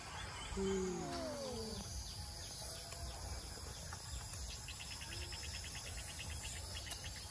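An insect trills in rapid, evenly spaced pulses through most of the stretch. About a second in, a child makes a brief falling vocal sound.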